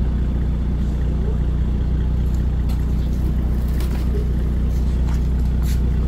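A car engine idling with a steady low hum and no change in pitch, from the parked Mercedes-Benz SLK 350 with its brake lights lit.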